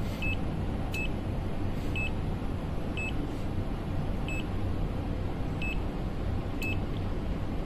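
HABOTEST HT121 pen-type multimeter's buzzer giving seven short high beeps, roughly once a second with uneven gaps, while in its phase rotation sequence test mode. A steady low hum runs underneath.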